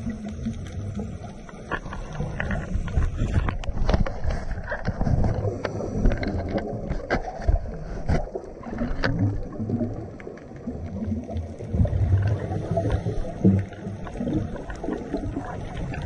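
Muffled underwater sound of a scuba diver's regulator, with exhaled bubbles gurgling in repeated bursts and a few sharp clicks.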